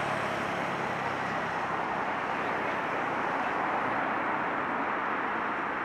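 Steady din of road traffic, with no single vehicle standing out. A low hum fades out about a second in.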